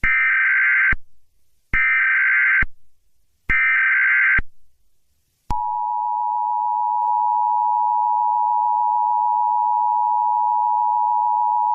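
Emergency Alert System alert. First come three data bursts of the SAME header, each about a second long with short pauses between. Then, about five and a half seconds in, the steady two-tone EAS attention signal starts and holds.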